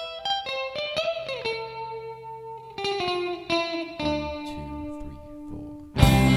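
Background music: electric guitar through effects playing plucked notes, with a long note sliding slowly down in pitch. The track suddenly gets much louder and fuller near the end.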